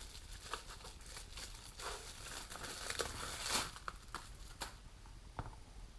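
Packaging crinkling and rustling in the hands as a small electronic device is unwrapped, in scattered faint crackles with a few louder rustles partway through.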